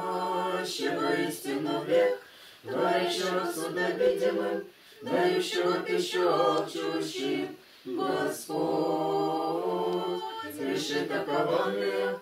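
A small choir of children singing unaccompanied: four phrases of a few seconds each, with short breaks between them.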